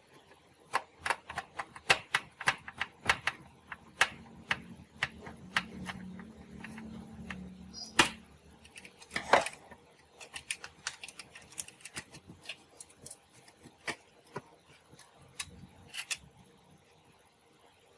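Small hard parts and tools handled during restoration work on a radio-cassette player: a run of irregular sharp clicks and taps, with a low hum for a few seconds in the middle.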